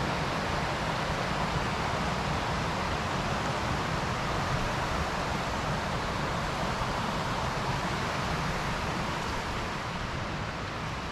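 Steady rushing of a mountain creek's running water, easing off a little near the end.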